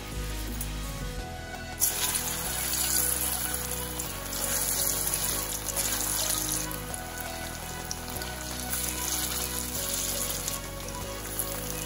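Marinated bottle gourd (lauki) mixture, coated in spices, rice flour and besan, goes into hot mustard oil and sizzles loudly from about two seconds in, a steady hiss over background music. Before that, fenugreek seeds sizzle faintly in the oil.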